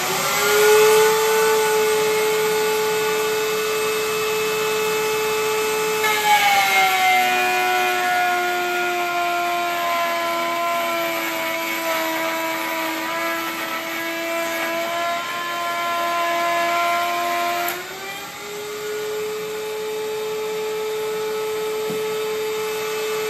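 Router spinning a half-inch straight bit in a router table, a steady high whine. About six seconds in, a piece of wood is fed past the bit and the pitch drops under the cutting load while the rabbet is cut, rising back to full speed about twelve seconds later when the cut ends.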